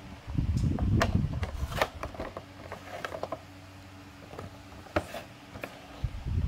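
Toy packaging being handled: the clear plastic blister and card box crinkle and click, with dull low rubbing thumps as the package is moved about. Sharp clicks come about a second in, just before two seconds and again around five seconds.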